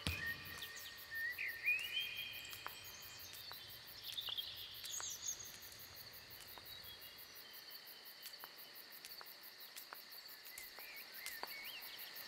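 Faint natural ambience: a steady, high-pitched insect chorus, with a few short bird chirps in the first half and scattered light ticks.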